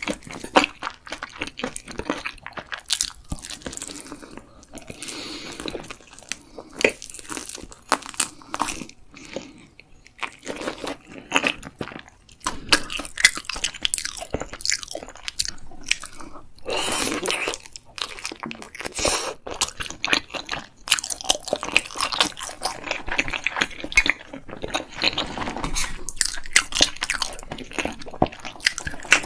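Close-miked eating: a person biting and chewing crunchy food, with many irregular sharp crunches and short pauses between bites.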